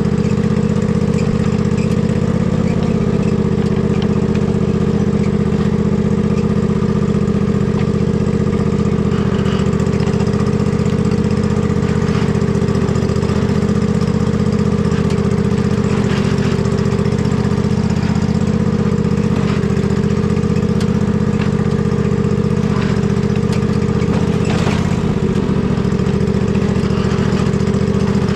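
Riding lawn mower engine running steadily at an even speed, with a few faint knocks over it.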